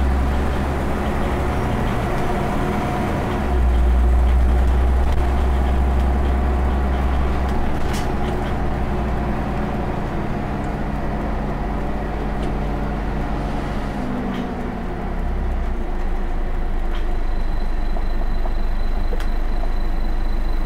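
Scania OmniCity bus heard from inside the saloon while under way: its diesel engine and drivetrain running with a deep rumble over road noise. The engine note drops away about two-thirds of the way through as the bus eases off, then the sound builds again.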